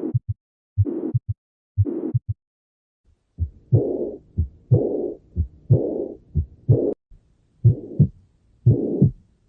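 Heart sounds heard through a stethoscope, with a murmur. The beats come about once a second, each a pair of low thuds with a whooshing murmur over it. After a short pause a little over three seconds in, the beats return with a longer whoosh.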